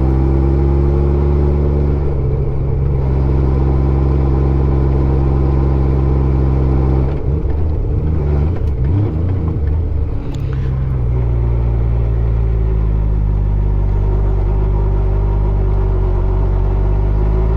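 Honda Gold Wing 1500's flat-six engine running steadily under way, its pitch breaking up and turning ragged for a few seconds near the middle before settling again and slowly rising.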